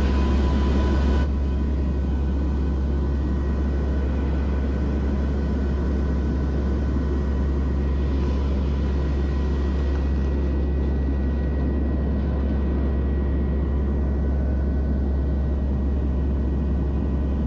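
Steady in-cabin drone of a turboprop aircraft in flight: a deep engine and propeller hum with a few thin, steady whining tones above it.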